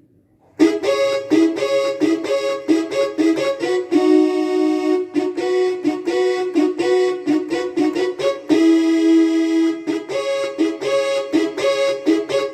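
Korg N5 synthesizer playing the 'Xanalog' patch taken from the Korg X5D: a quick sequence of short pitched notes with a few longer held ones, starting about half a second in.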